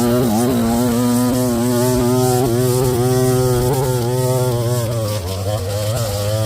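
Small petrol engine of lawn equipment running at high speed, its pitch wavering slightly up and down.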